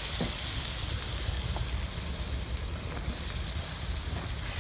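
Sausage, chicken, vegetables and freshly added garlic sizzling on a grill: a steady, even frying hiss.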